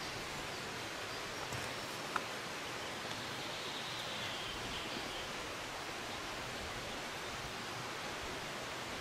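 Steady outdoor forest ambience, an even hiss, with one sharp click about two seconds in.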